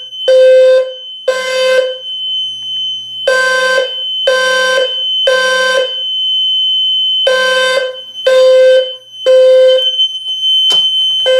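Gentex low-frequency fire alarm horn sounding the temporal-3 evacuation pattern: sets of three low half-second horn blasts about a second apart, each set followed by a pause of about a second and a half. A thin steady high-pitched tone runs underneath the blasts.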